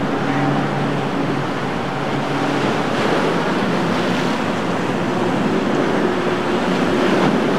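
Breaking waves and surf churning against boat hulls, with wind on the microphone and the faint steady drone of outboard motors underneath.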